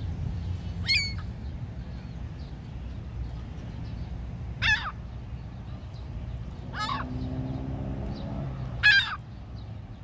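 Ring-billed gull giving four short, sharp calls over a steady low rumble.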